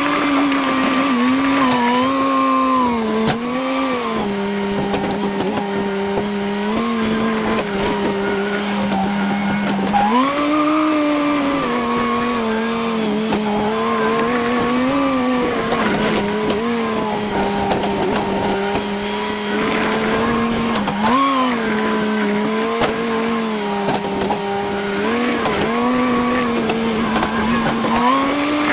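A farm machine's engine running under working load, its pitch repeatedly dipping and climbing as the load and throttle change, with faint clanks and rattles on top.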